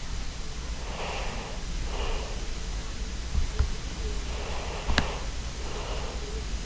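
Steady low hum and hiss of microphone background noise, with several short breathy noises and two sharp clicks. The louder click comes about five seconds in.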